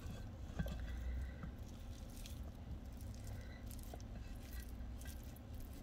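Quiet kitchen room tone: a faint steady low hum with a few soft, scattered clicks and rustles.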